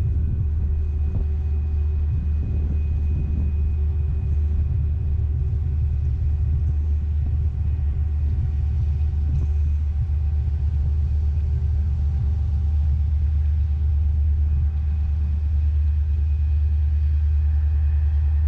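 Steady low drone of a passenger ferry's engines heard on board, with a few constant hums above it.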